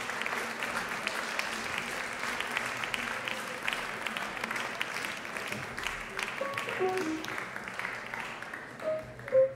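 Audience applauding; the clapping thins out over the second half. Scattered single instrument notes sound through it, and the playing picks up near the end.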